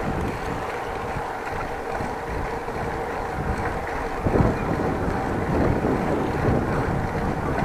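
Wind buffeting the microphone of a bike-mounted action camera while cycling, a steady rushing noise with tyre and road rumble underneath. About four seconds in there is a brief louder thump.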